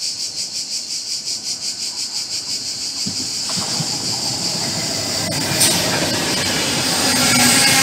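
ETR 500 Frecciarossa high-speed train approaching and running through a station at speed. First comes a high hiss from the rails, pulsing several times a second. From about three and a half seconds in, the train's rushing grows steadily louder as it arrives and passes close by.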